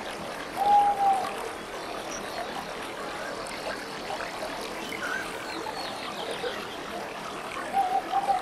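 Goldfish aquarium's filter and air pump running, a steady hiss of moving and bubbling water. A short clear tone sounds twice over it, about a second in and again near the end.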